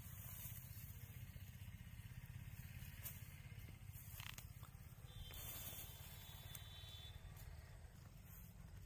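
Near silence: a faint steady low rumble of outdoor background, with a couple of faint clicks partway through.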